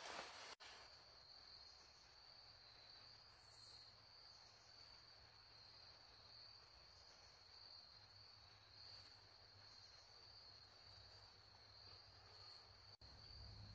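Near silence: a faint, steady high-pitched insect chorus over a faint low hum.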